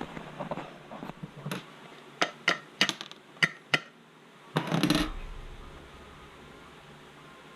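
Light metallic clinks and taps of tools or parts being handled, about six sharp ones within two seconds, then a short rattling scrape about five seconds in.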